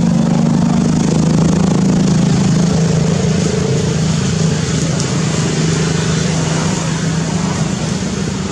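A motor vehicle's engine running steadily, a low hum that eases off slightly near the end.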